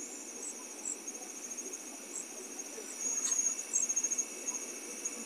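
Crickets chirping in fast, high-pitched trills, a little louder about three seconds in.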